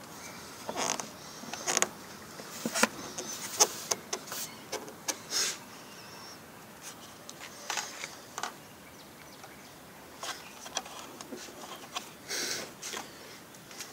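Irregular scrapes, taps and rustles of a hand working around an Opel Vectra B's front strut top mount and the plastic trim beside it, several short ones a few seconds apart.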